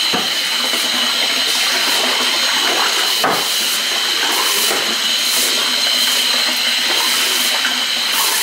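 Milwaukee M18 battery drum drain snake running steadily with a high whine, its 7/8-inch cable turning in a floor drain, over a continuous rush of water.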